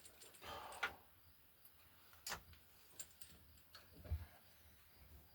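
Quiet handling noise of a coax connector and tools: a short rustle under a second in, a few light clicks, and a soft low thump about four seconds in.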